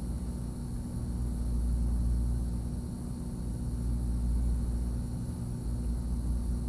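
Steady low hum of a small fan motor running on the electronics repair bench, with a constant drone and faint hiss and no sudden sounds.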